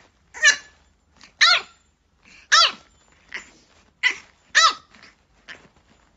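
Small dog barking repeatedly in short, high-pitched yaps, roughly one a second.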